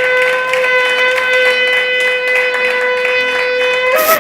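Shofar blown in one long, steady, held note. Near the end it breaks upward into a short blare and stops.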